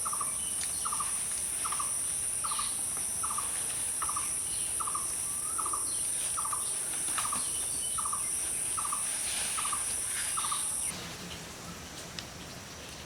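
A bird repeating a short, pulsed call about one and a half times a second, over a steady high-pitched insect drone. The drone cuts off suddenly about eleven seconds in, and the calls stop shortly before.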